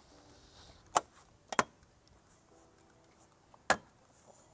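Sharp snaps of the Jeep Wrangler JL grille's retaining clips popping loose as the grille is tugged off: one about a second in, a quick double half a second later, and another near the end.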